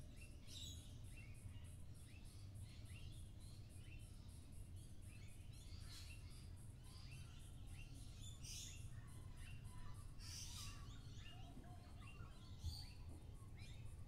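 Many birds chirping and calling at once, short overlapping notes from several directions, with a couple of louder calls past the middle. Underneath is a faint, steady low background rumble.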